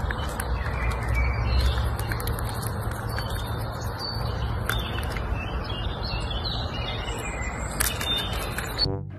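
Small birds chirping on and off over a steady rushing noise with a deep low rumble.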